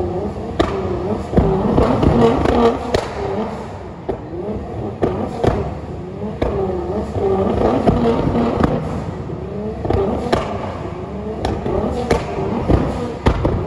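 Nissan GT-R R35's twin-turbo V6 being blipped repeatedly while standing still, the engine note rising and falling about half a dozen times. Sharp cracks and pops come from the exhaust as its flame tune ignites fuel there, shooting flames.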